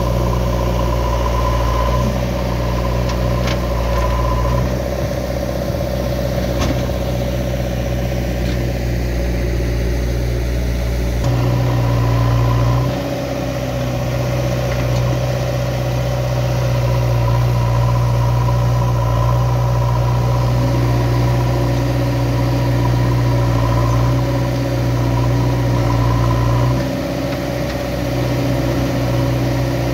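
Diesel engine of a JCB 3DX backhoe loader running at work, its note and load shifting several times. A steady high whine comes and goes over it.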